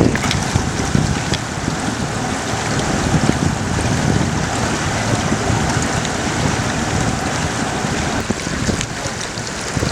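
Outboard-powered boats running at speed on a river: steady engine noise with water rushing past the hull and wind buffeting the microphone.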